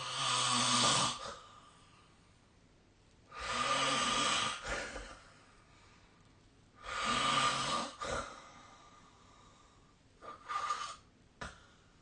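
A sleeping person snoring: three loud snores of a bit over a second each, about three and a half seconds apart, followed near the end by a few shorter, weaker sounds.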